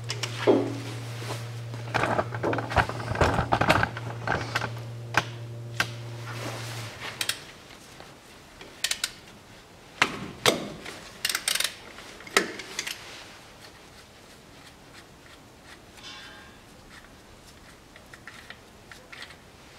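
Ratchet wrench clicking and metal tool clanks as the 24 mm fill plug on a transfer case is loosened. The clicks come thickest a few seconds in, then turn to scattered knocks that die away halfway through. A steady low hum underneath stops about seven seconds in.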